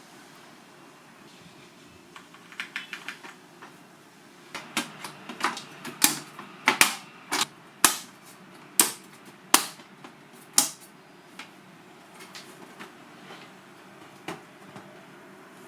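Irregular sharp clicks and taps of hard parts: a quick run of light clicks about two and a half seconds in, then about a dozen louder ones spaced half a second to a second apart, fading to a few faint ticks near the end.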